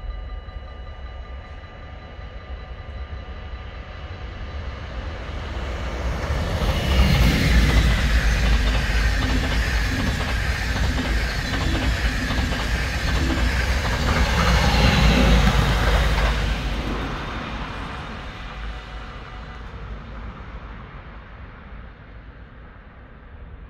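An electric NS passenger train passes on the line. It swells in from about six seconds in, goes by with a run of rhythmic clicks from the wheels over the rail joints, and dies away after about seventeen seconds. Faint steady tones are heard at the start.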